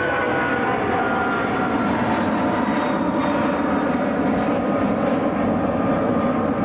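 Boeing 747-400 climbing out after takeoff: a loud, steady jet roar from its four Rolls-Royce RB211 engines at takeoff power. A whine in the roar slowly falls in pitch as the aircraft passes.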